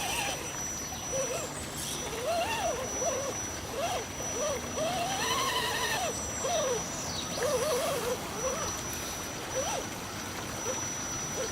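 Electric motor of an RC 4x4 jeep whining, its pitch rising and falling over and over as the throttle is worked, over a steady hiss and a faint high steady tone.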